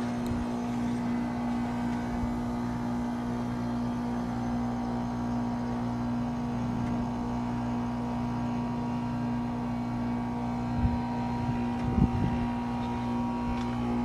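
Goodman GSZ14 heat pump's outdoor unit humming steadily in defrost mode, its compressor running with a constant low tone. Toward the end come a few soft low thumps.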